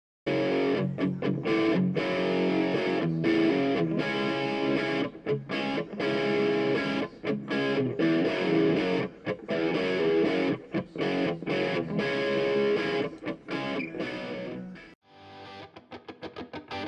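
Outro music: electric guitar with distortion, strummed. It switches to a quieter, rapidly pulsing part near the end.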